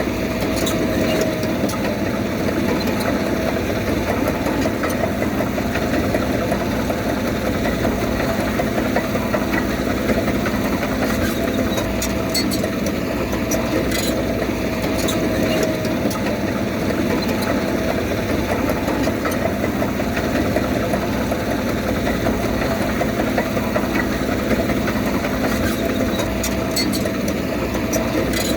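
Heavy diesel earthmoving machine engine running steadily, with a few faint clanks.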